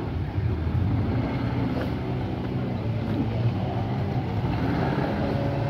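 Outboard motor on a long wooden river boat running steadily.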